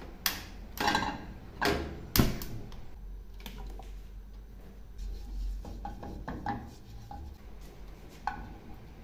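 Frying pan knocking and clattering on the gas stove's metal grate: four sharp clanks in the first two and a half seconds, the loudest a little over two seconds in, then lighter clicks and taps.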